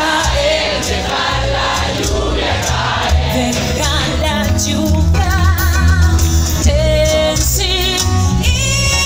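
Live pop band with drums, bass and keyboards playing while a woman sings, her held notes wavering with vibrato in the second half.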